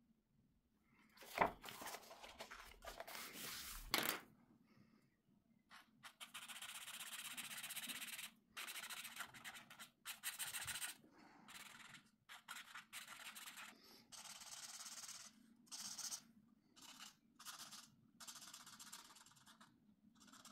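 Felt-tip marker rubbing on colouring-book paper in short strokes that stop and start, as an area is filled in with colour. Two sharper knocks come in the first few seconds.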